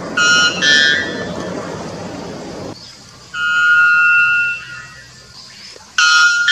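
White bellbird singing loud, clear notes: a quick pair, the second slightly higher, near the start and again near the end, with one longer held note in the middle. A steady background hiss runs under the first few seconds.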